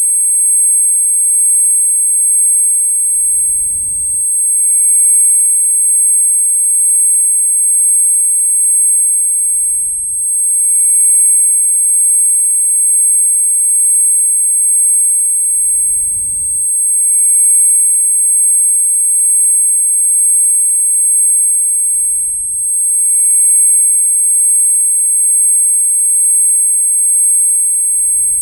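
Tinnitus-style ear-ringing sound effect: a loud, steady, very high-pitched ringing made of a few pure tones held without change. Faint low swells come about every six seconds beneath it.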